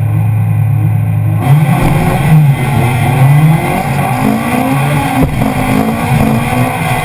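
Honda Civic 1.6 VTEC four-cylinder race engine heard from inside the car, held at steady high revs on the start line, then launching about a second and a half in. After the launch the revs climb in short rising steps over loud tyre and gravel noise, with one sharp knock near the end.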